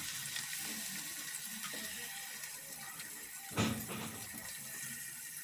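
Chopped onions sizzling in hot oil in a steel kadhai: a steady frying hiss. A brief clatter about three and a half seconds in as the spatula scrapes the bowl.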